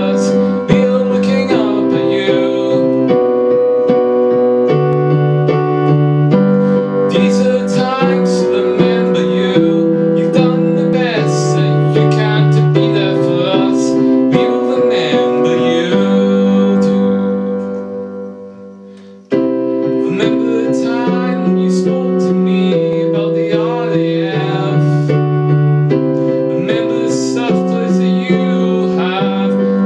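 Electronic keyboard played with a piano sound, a slow ballad of sustained chords changing every second or two. About two-thirds of the way through, one chord is held and dies away for a few seconds, then the playing comes back in suddenly.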